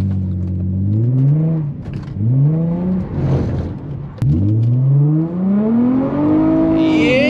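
Infiniti G35's 3.5-litre VQ V6 revving hard under full acceleration. Its pitch climbs in three rising pulls and drops between them, the last and longest pull starting about four seconds in.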